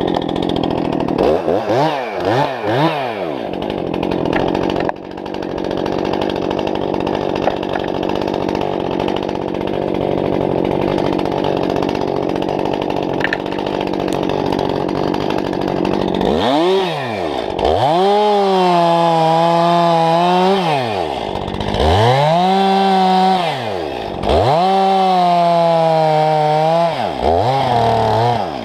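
Two-stroke chainsaw cutting up a felled larch. It starts off with a few quick blips of the throttle and then runs steadily. From about halfway it is revved up four or five times, held at full speed for about two seconds each time and dropping back between.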